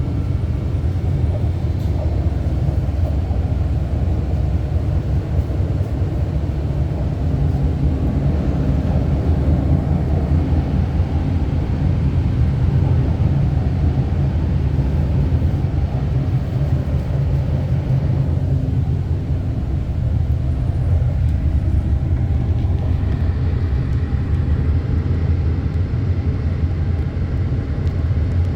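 REM light-metro train running, heard from inside the car: a steady low rumble of wheels on track and the running gear. A faint whine comes in about three-quarters of the way through.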